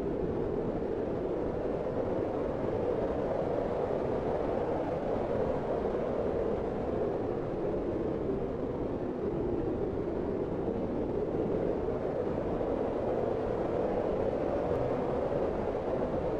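Steady wind sound effect: a smooth, even rushing of cold wind, its hiss sitting low and rising and falling only slightly.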